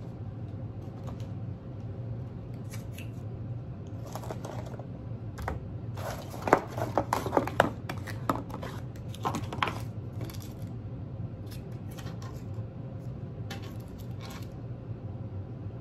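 Paper and plastic fast-food packaging, such as sauce packets and food cartons, handled on a table: scattered rustles and taps, with a dense run of sharp crinkles and clicks in the middle, over a steady low hum.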